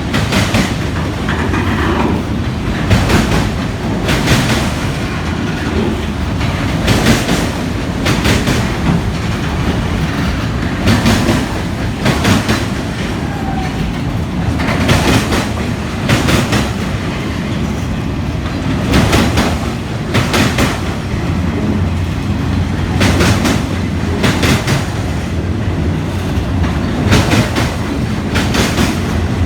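Freight train of autorack cars rolling past at moderate speed, a steady rumble with the wheels clicking over a rail joint in pairs about a second apart, one pair roughly every four seconds as each car's trucks cross.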